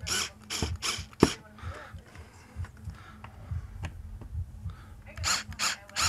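Cordless screwdriver driving the wall-plate screws snug, in short bursts: a cluster in the first second or so and another near the end.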